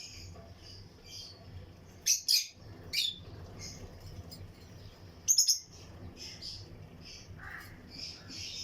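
A colony of lutino lovebirds chirping steadily, with loud, sharp shrieking calls about two and three seconds in and a quick burst of three about five seconds in.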